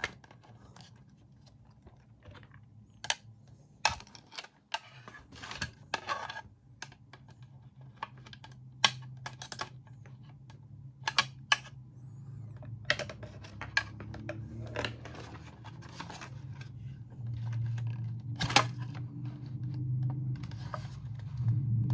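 Scattered clicks, taps and scrapes of a screwdriver and the black plastic housing of a Bodum electric coffee grinder being handled during reassembly, with a low hum growing louder in the second half.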